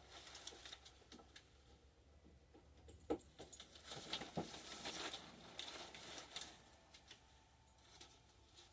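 Faint handling noises: light clicks and rustling as a revolver is turned over in the hands, with two sharper clicks about three seconds in and a second or so later.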